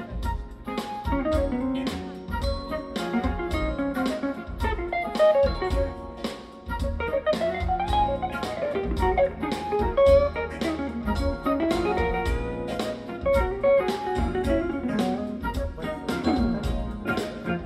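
Live band playing an instrumental jazz-funk groove: guitar melody lines running up and down over a steady drum beat and bass.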